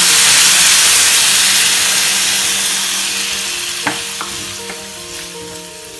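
Water poured into a hot pan of oil-fried raw mango pieces, sizzling loudly at first, the hiss dying away gradually as it settles. A wooden spoon stirs through it and knocks against the metal pan a couple of times.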